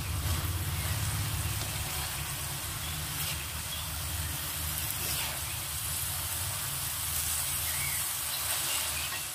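Genjer (yellow velvetleaf) stems and leaves sizzling in a hot wok while a metal spatula stirs and tosses them, with light scrapes against the pan. A steady low hum runs underneath.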